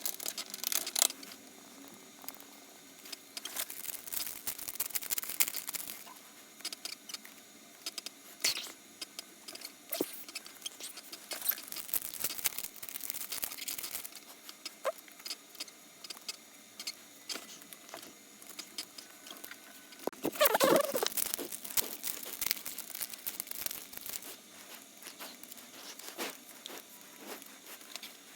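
Trading-card packs and cards being handled: wrappers crinkling and tearing, with light taps and rustles as cards are shuffled through. The handling gets louder and busier for a couple of seconds about two-thirds of the way through.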